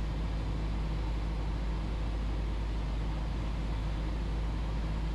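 Cessna 172's piston engine and propeller droning steadily in the cabin, a constant low hum with no change in pitch or level.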